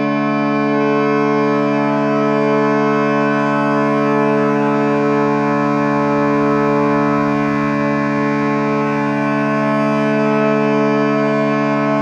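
Ambient meditation music tuned to 432 Hz: a steady drone of several low tones held as one unchanging chord.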